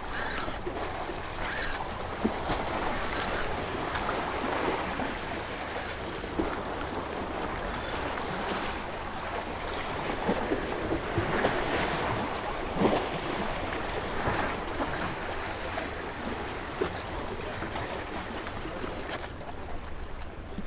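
Small waves washing and splashing against jetty rocks, a steady rushing hiss, with some wind on the microphone.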